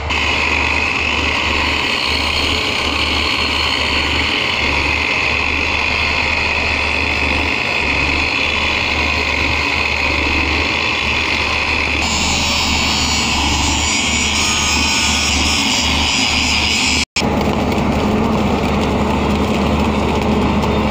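Track machinery running with a steady engine drone and a high whine. In the last few seconds a mobile flash-butt rail welder is flashing across a rail joint, adding a dense crackle.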